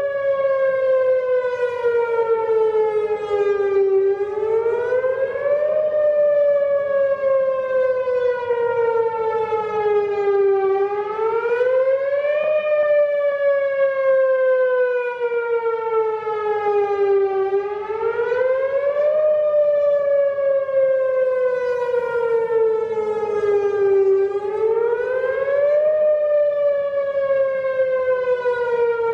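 Whelen WPS-4004 electronic outdoor warning siren (530 Hz) sounding its whoop signal. The pitch repeatedly sweeps up quickly over about a second, then sinks slowly over about five seconds, about every six and a half seconds.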